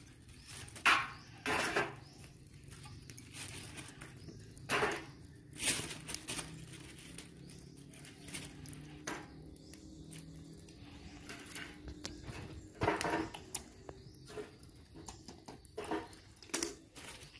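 Small wood fire crackling in a metal grill tray: irregular sharp crackles and knocks, a few of them louder, over a faint steady background.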